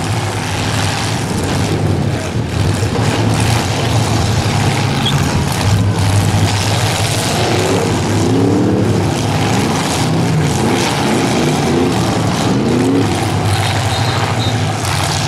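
Several demolition derby car engines running and revving loudly together. Through the middle, engine pitch rises and falls repeatedly as the cars push against each other.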